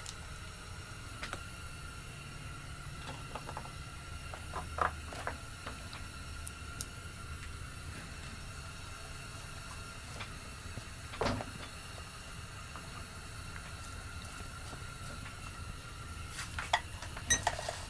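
Sparse light clicks and knocks of chainsaw parts and hand tools being handled during reassembly, the loudest about eleven seconds in, over a steady faint hum.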